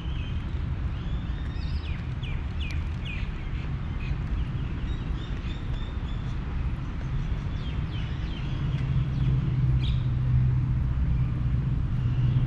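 Birds chirping in short repeated calls over a steady low rumble of distant traffic. About eight seconds in, a low steady hum like an engine comes up and grows louder.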